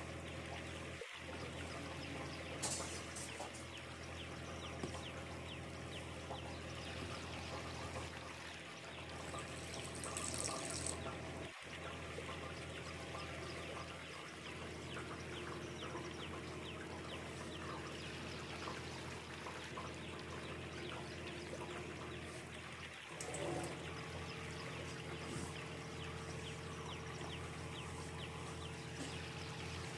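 Faint squishing and rustling of hands mixing and kneading wheat flour and water into a stiff dough in a steel bowl, over a steady low hum, with two short louder hissing bursts.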